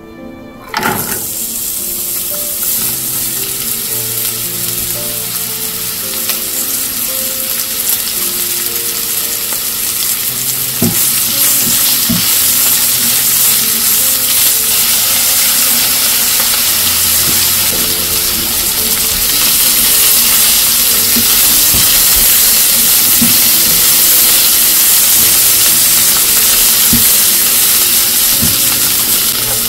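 Chopped onion dropped into hot olive oil in a nonstick frying pan starts sizzling suddenly about a second in, and keeps frying steadily as it is stirred with a silicone spatula. A few light knocks come through along the way.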